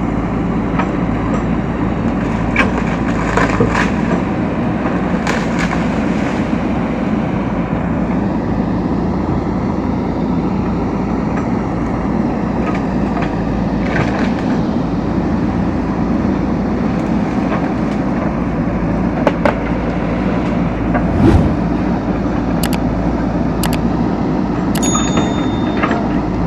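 JCB backhoe loader's diesel engine running steadily under load, with scattered sharp clanks and knocks from the working machine, the loudest about three quarters of the way through.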